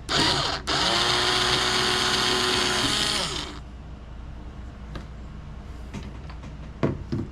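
Cordless power screwdriver backing screws out of a VCR's metal case: a short half-second burst, then a steady motor whine for about three seconds that winds down, followed by a couple of light clicks near the end.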